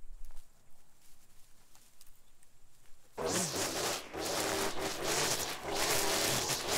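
Faint rustling and small ticks, then about halfway through a gas string trimmer starts in suddenly at high speed, cutting weeds, its engine note wavering up and down.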